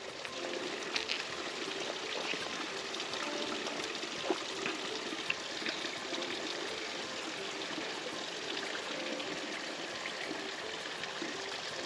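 Water being sucked from a soft flask through its bite valve, with slurping, small clicks and swallows over a steady hiss.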